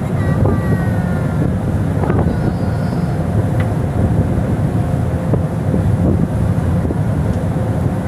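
Strong wind buffeting the microphone over the steady low rumble of a ship under way, its engine running and its wake churning.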